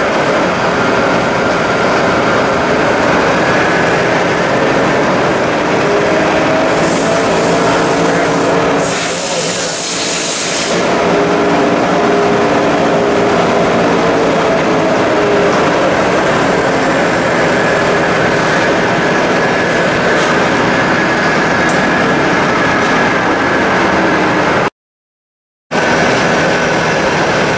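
Lagun FTV-4 knee mill's 4 HP variable-speed spindle head running steadily, with several humming tones that drift slightly in pitch. A brief hiss comes about nine seconds in, and the sound cuts out for about a second near the end.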